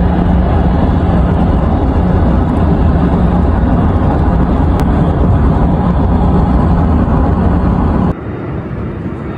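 Jet engine noise from a Boeing 717's two rear-mounted Rolls-Royce BR715 turbofans, loud and steady, as the airliner climbs out low overhead after departure. About eight seconds in the sound drops suddenly to a quieter steady noise.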